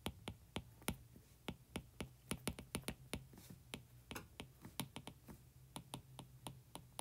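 Stylus tip clicking on a tablet's glass screen during handwriting: a faint, irregular run of sharp little ticks, several a second.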